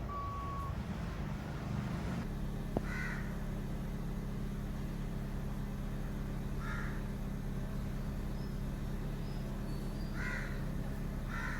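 Four short animal calls, spaced a few seconds apart, over a steady low hum.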